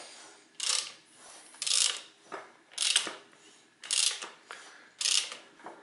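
Ratchet wrench turning a Ford Zetec engine over by hand, spark plugs out. The ratchet clicks on each return stroke, five strokes about a second apart, with quieter rubbing between them.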